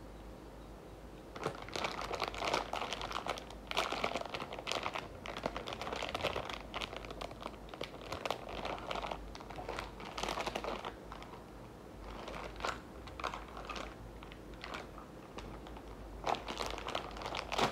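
Crinkling and rustling of paper or plastic packaging handled close to the microphone, in irregular crackly bursts that pause briefly a couple of times.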